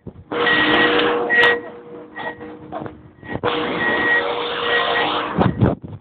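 Loud rushing noise of a snowboard sliding over snow, with wind on the microphone. It drops away for about a second and a half about two seconds in, then returns, and a few low buffets of wind follow near the end.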